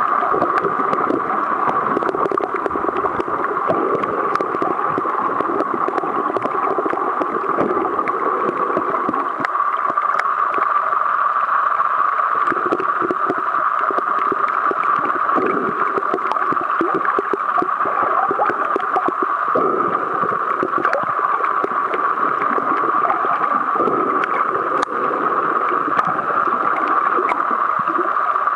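Underwater sound picked up by a camera in its waterproof housing while snorkeling: a steady hum with irregular sloshing water noise beneath it that comes and goes.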